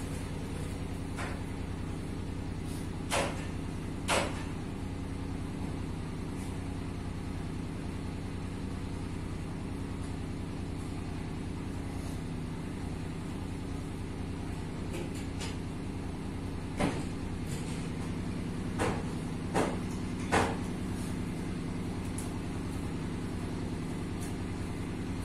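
A concrete-block (batako) making machine running with a constant low mechanical hum. Several sharp knocks stand out, two about three and four seconds in and four more between about seventeen and twenty seconds in.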